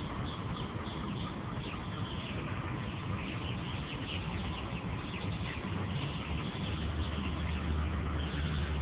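Outdoor background of small birds chirping over a steady low rumble, the rumble growing stronger in the last couple of seconds.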